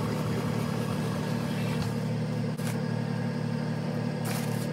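A steady low mechanical hum, even in level throughout, with two brief soft rustles about two and a half and four and a quarter seconds in.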